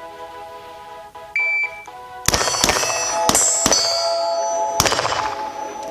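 A shot timer's short high start beep, then five rifle shots fired in quick succession over about two and a half seconds in a timed drill. Background music plays throughout.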